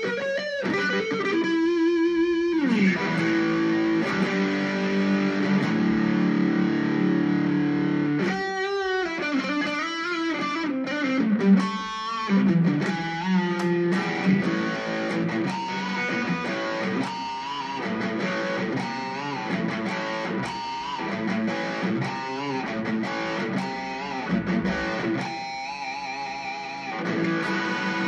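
Korean-made Legend Les Paul Custom electric guitar, its humbucker pickups played through a small Boss Katana Mini amplifier with no effects pedals. It plays single-note lead lines and chords, with wide vibrato on held notes about two seconds in, around nine seconds in and near the end.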